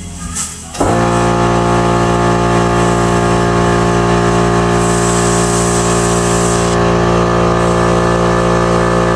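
Handheld electric tool switched on about a second in, running with a steady, even buzz that holds one unchanging pitch and stops sharply near the end.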